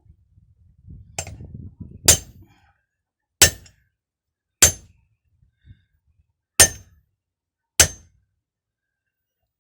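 Hammer blows on metal during hydraulic hose fitting work: six sharp, ringing metallic strikes, one to two seconds apart, after a little handling noise at the start.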